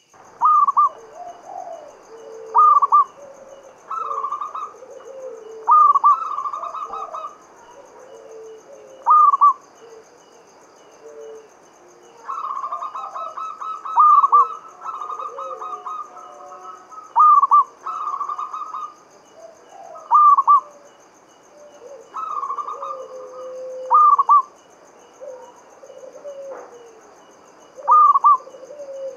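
Zebra dove (perkutut) cooing: short, loud, rolling coo phrases repeated every couple of seconds, with softer lower coos between them.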